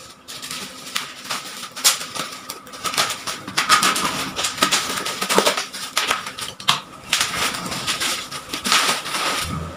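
Black bubble-wrap parcel wrapping crinkling and crackling as it is cut open with scissors and pulled off a cardboard box, in dense irregular crackles and snips.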